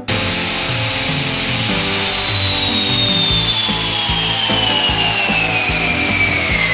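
Festool cordless drill-driver with a brushless motor, working into wood. The loud grinding noise starts suddenly, and its whine falls steadily in pitch throughout. Background music plays underneath.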